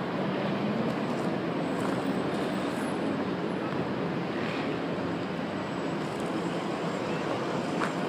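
Steady city background din, mostly distant road traffic, with no single event standing out.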